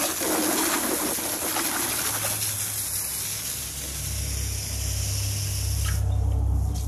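Garden hose with a high-pressure nozzle spraying water onto asphalt to rinse off soap, a steady hiss that cuts off suddenly about six seconds in. Under it, a low engine rumble rises from about two seconds in and grows stronger toward the end.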